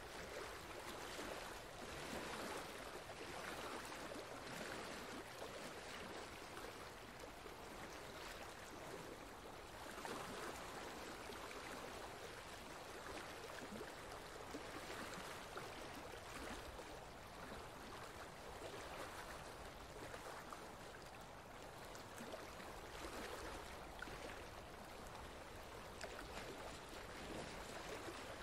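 Faint flowing water, a steady rush that swells and eases every few seconds.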